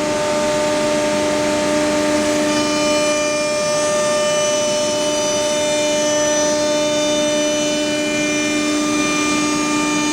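Wood CNC router's spindle running steadily, a loud whine with several pitches; more high-pitched tones join about two and a half seconds in.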